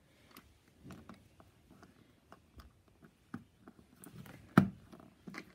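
Small plastic LEGO minifigure pieces handled and fitted together: faint scattered clicks and rustles, with one sharp click about four and a half seconds in as a piece is pressed into place.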